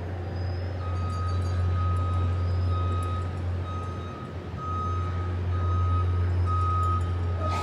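Vehicle reversing alarm beeping about once a second, one steady high tone per beep, over a steady low hum. There is a sharp click near the end.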